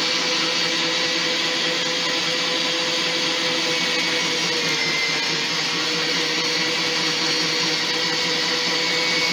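Ollygrin electric meat grinder's motor running steadily, a constant whirring hum with a few steady tones.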